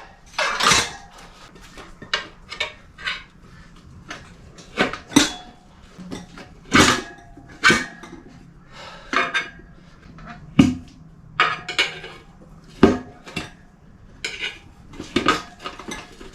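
Metal tyre levers clinking and knocking against a motorcycle wheel rim as a new tubeless tyre is levered onto it: irregular sharp clanks, one every second or so.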